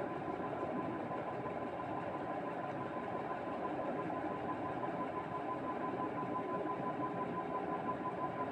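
Steady mechanical hum and hiss with a faint, thin, high whine held at one pitch; no distinct knocks or other events.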